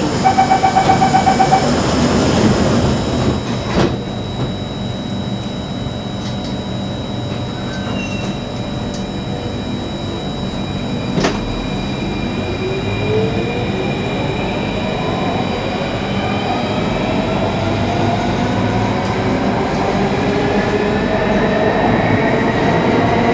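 Singapore MRT Circle Line train: the door-closing chime beeps rapidly for about the first two seconds and the doors shut with a knock about four seconds in. The train then pulls away, its traction motor whine rising steadily in pitch as it speeds up over the rumble of the wheels.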